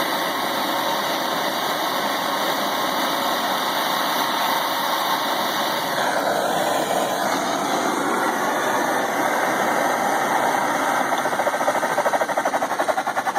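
MAP gas torch burning with a steady hiss. Near the end the flame starts to flutter in a fast pulsing rhythm.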